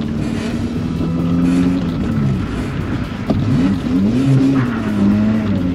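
Old Suzuki Swift's engine running at steady revs, then dropping. From about three seconds in it revs up and down several times in quick succession.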